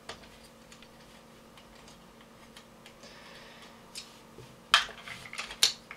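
Light metallic clicks and ticks of an Allen key and small screws being worked loose on an airsoft rifle's RIS rail, with a couple of sharper clicks about three quarters of the way through and near the end.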